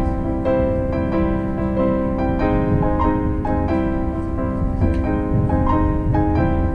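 Background piano music: single notes picked out one after another over held chords, with a low steady rumble underneath.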